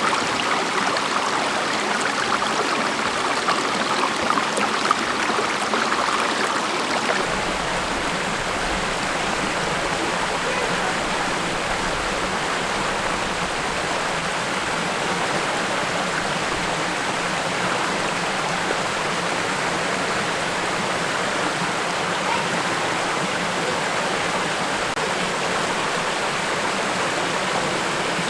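Steady rush of fast-flowing water, as at a waterfall, a little stronger in the first several seconds.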